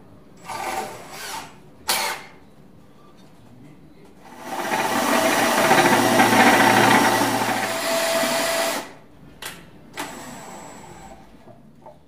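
DeWalt cordless drill boring a hole through a walnut chair seat with a long drill bit on an extension. Two short bursts of the drill come first, then about four and a half seconds of steady drilling into the wood, then two brief blips near the end.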